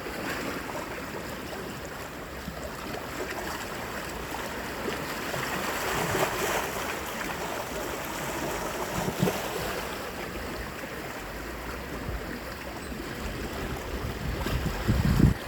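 Baltic Sea waves washing in a steady rush, swelling louder about six seconds in, with a brief low rumble near the end.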